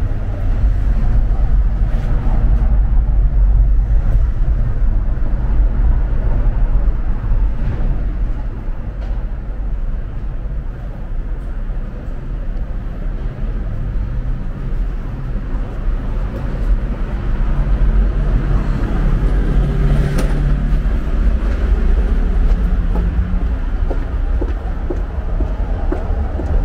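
Steady low rumble of city street traffic, with a vehicle's engine hum rising out of it about two-thirds of the way through.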